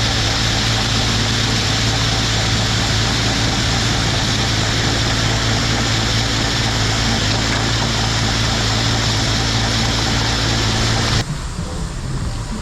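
Heavy engine running steadily with a low hum, cutting off abruptly about eleven seconds in and giving way to quieter background noise.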